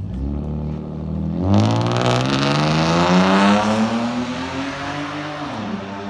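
BMW E36 accelerating hard away: the engine note jumps about a second and a half in, climbs steadily in pitch for several seconds, then drops near the end as it shifts up.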